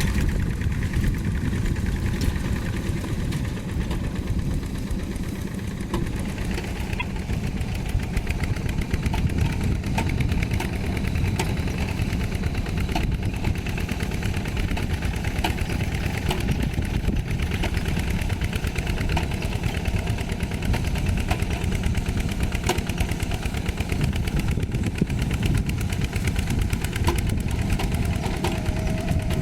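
Tractor diesel engine running steadily, with a fast, even clatter.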